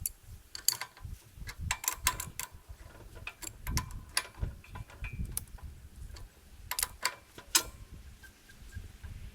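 Irregular sharp metallic clicks and knocks of hand tools working on a hydraulic log splitter during reassembly, a few a second with short pauses.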